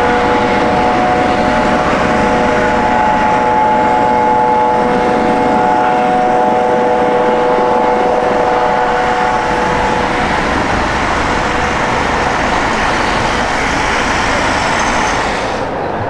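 Airbus AS365 Dauphin twin-turbine helicopter running on the airfield, a loud, steady rotor and turbine noise with a set of held whining tones that fade out about ten seconds in. The sound drops abruptly to a duller, quieter one near the end.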